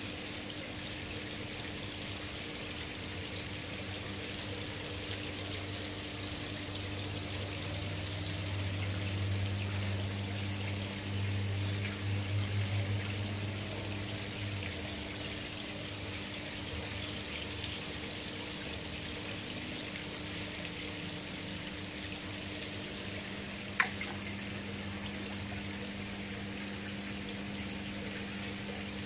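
Steady running, trickling water in a koi pond, with a low steady hum beneath it. A single sharp click comes late on.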